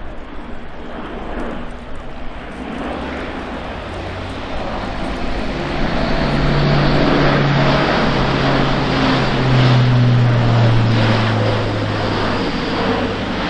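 Airbus A400M Atlas's four Europrop TP400 turboprop engines and eight-bladed propellers droning on a close pass, growing louder over the first six seconds. A low propeller hum drops in pitch about two-thirds of the way through as the aircraft goes by.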